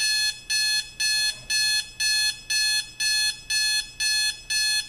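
Timex T101B digital alarm clock's buzzer alarm sounding: a high-pitched electronic beep rich in overtones, repeating steadily about twice a second.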